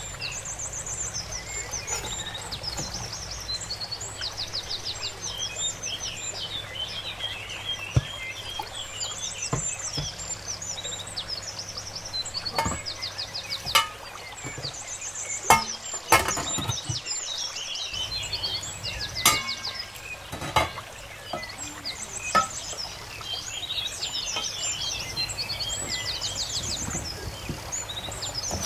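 Small birds chirping and trilling without a break. About a dozen sharp knocks and clatters of utensils on a metal cooking pot cut through from about a third of the way in, and they are the loudest sounds.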